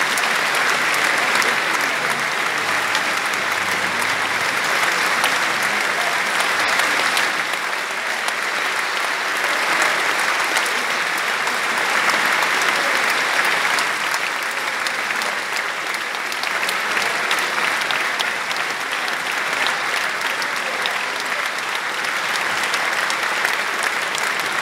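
Theatre audience applauding: dense, continuous clapping from a large crowd that holds steady throughout.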